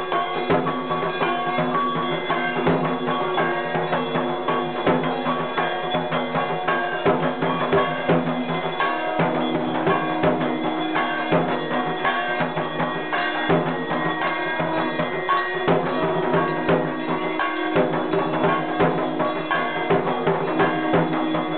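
Fast, steady drumming with clanging metal percussion for a puja offering, over sustained pitched tones that shift to a new pitch a few times.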